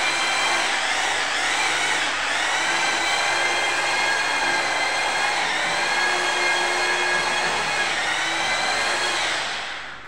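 Angle grinder with a cutting disc running at speed, a steady high whine whose pitch dips briefly a few times as it comes under load, then winds down near the end.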